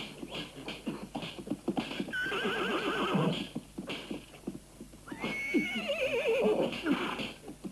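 Horses whinnying twice, each call quavering and falling in pitch, about two seconds in and again about five seconds in, over the clatter of hooves during a rearing, scuffling fight.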